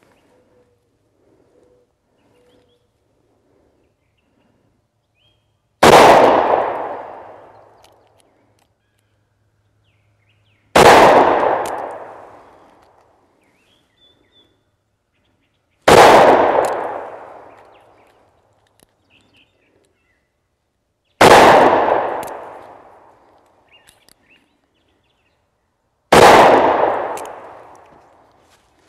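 Five shots of .410 number 8 birdshot shells fired from a Taurus Judge Ultra-Lite revolver with a 2.5-inch barrel, one about every five seconds. Each is a sharp bang that dies away over a couple of seconds.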